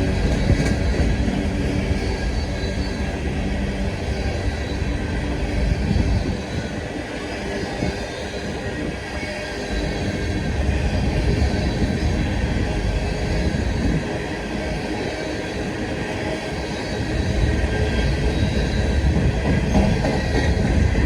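Empty freight train rolling past: a steady rumble and clatter of steel wheels on the rails, with faint wheel squeal.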